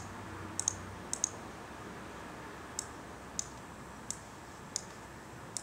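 Computer mouse button clicking, about nine sharp clicks spread out, including two quick pairs about a second in, as points of a vector shape are placed on screen.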